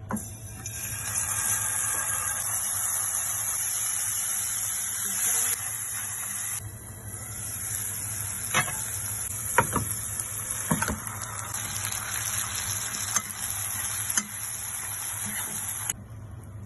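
Hot oil sizzling steadily in a frying pan as spices fry in it, with a few sharp taps of a utensil against the pan; the sizzle drops away near the end.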